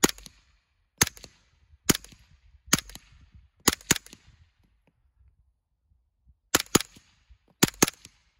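Integrally suppressed 9mm CZ Scorpion EVO 3 firing semi-automatic: about ten muffled cracks, first four single shots about a second apart and a quick pair, then after a pause of about two seconds, two more quick pairs. The rounds go into a dirt berm, so there is no steel ringing.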